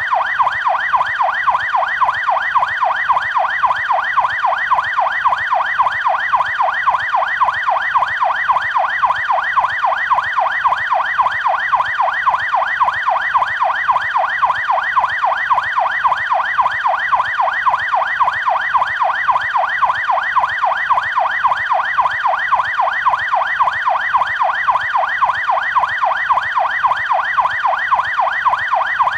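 Canadian police car siren on its yelp setting: a fast, unbroken cycle of pitch sweeps, about four a second.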